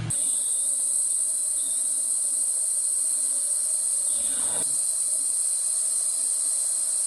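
Steady, high-pitched chirring of a cricket chorus in a field. About four seconds in, a short sound falls in pitch.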